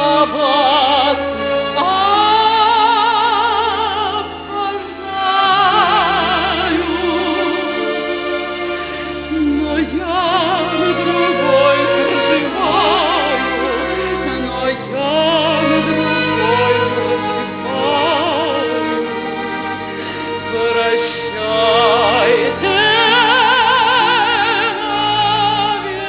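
A woman singing in operatic style with wide vibrato, over an instrumental accompaniment that holds sustained low notes.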